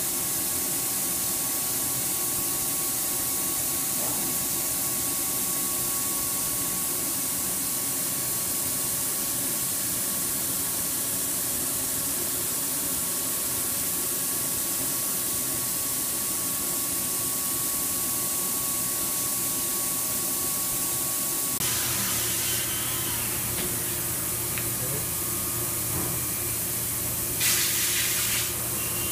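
CNC milling machine running with flood coolant spraying, a steady hiss with a thin whine over it. About three-quarters of the way through the whine stops and a low hum remains, with two short bursts of hissing near the end.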